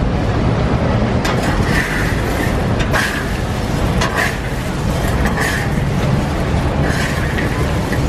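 Metal spatula scraping and tossing chestnuts through hot black quartz sand in an iron wok, a gritty scrape-and-rattle stroke about once a second, over a steady low rumble.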